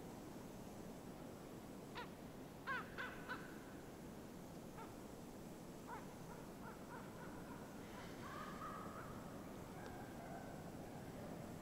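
Faint cawing of squabbling crows: a quick run of four short caws about two to three and a half seconds in, then fainter scattered calls and a longer call near the end.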